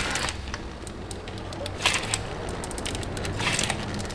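Scattered light rustles and clicks of a gloved hand gripping and working at a spin-on oil filter by hand, over a steady low hum.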